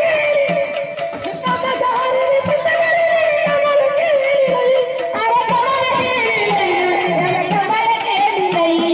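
Marathi jagran-gondhal folk music: a continuous wavering melody line over a steady drum beat.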